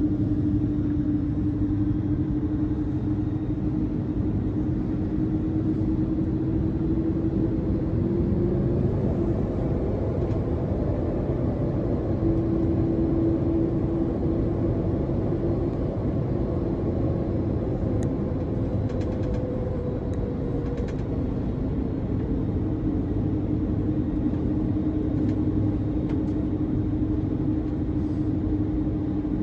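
Cabin noise of an Airbus A330-203 airliner in flight: a steady rush of engine and airflow noise with a humming drone that wavers slightly in pitch, and a few faint ticks about two-thirds of the way through.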